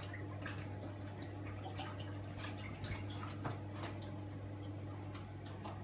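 Soft, irregular little clicks and crackles of phyllo pastry sheets being handled and dabbed with melted butter, over a steady low hum.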